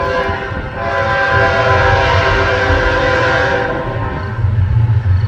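CN 3818 diesel locomotive's air horn blowing a chord of several steady notes for the grade crossing, in long blasts that fade briefly about four seconds in and then sound louder again. A low diesel rumble runs under it.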